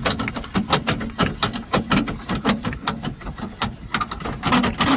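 Caravan jockey wheel being wound up by its crank handle: a quick, steady run of clicks and scrapes from the screw mechanism, about four a second.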